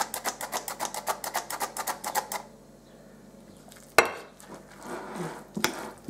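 Metal squeeze-handle flour sifter clicking rapidly and evenly, about eight or nine clicks a second, while sifting flour; the clicking stops about two and a half seconds in. A sharp knock follows about four seconds in as the sifter is set down on a plate, then a spoon scraping and stirring in a glass bowl.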